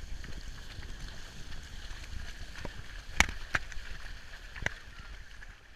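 Horses walking along a wet track, with wind rumbling on the microphone and a few sharp clicks, the loudest a little after three seconds in.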